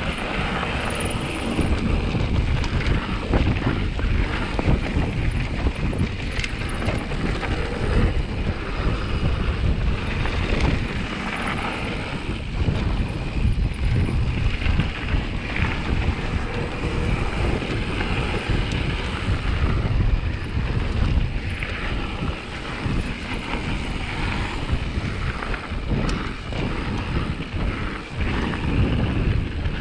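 Wind buffeting the camera microphone while a mountain bike rolls fast down a gravel trail, tyres running over loose stones, with frequent short knocks and rattles from the bike over the bumps.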